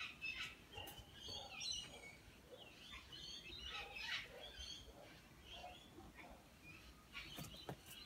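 Faint, scattered short bird chirps, with a couple of soft knocks near the end.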